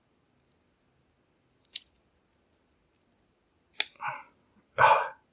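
Fingernails picking at adhesive tape wrapped on a padlock: a few light clicks and scratches, then a short rasp of tape being worked loose about a second before the end, the loudest sound.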